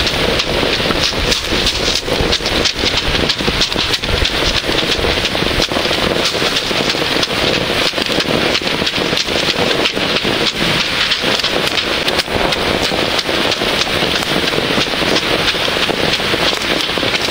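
Heavy downpour close to the microphone: a dense, steady hiss with a constant spatter of small drop impacts.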